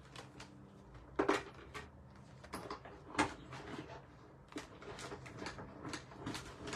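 Scattered light clicks and taps of card-making supplies being handled and set down on a craft table, with two louder knocks about a second in and about three seconds in.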